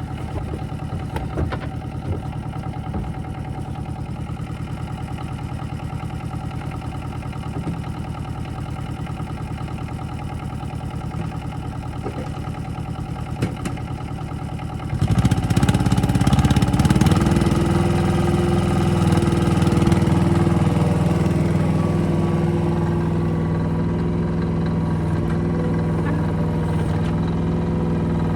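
Yanmar mini excavator's small diesel engine running steadily at a low speed, then throttled up about halfway through, running louder and higher for the rest of the time.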